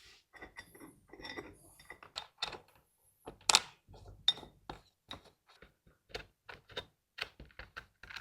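Small metal screws and hardware clicking and clinking as they are handled, with a sharper knock about three and a half seconds in.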